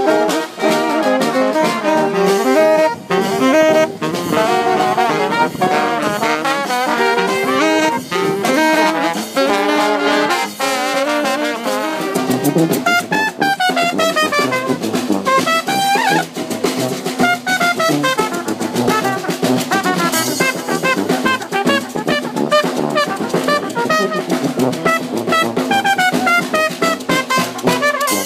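New Orleans-style brass band playing live: trumpet, trombone and saxophone over marching drums and cymbals.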